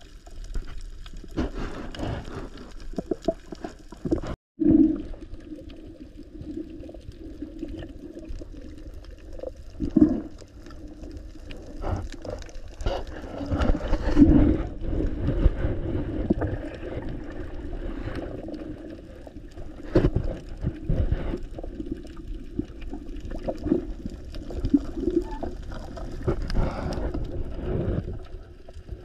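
Muffled underwater sound picked up by a camera in its housing: a steady low water rumble with irregular knocks, swells and bubbling as it moves through the water. The sound cuts out briefly about four seconds in.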